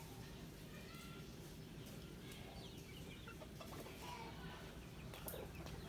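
Faint clucking of farmyard chickens, a scatter of short calls.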